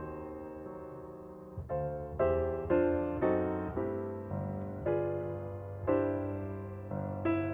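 Piano music: unhurried notes and chords, each struck and left to ring and fade.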